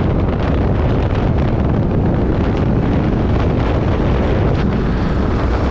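Wind buffeting the microphone over the steady rumble of a moving vehicle, loud and unbroken.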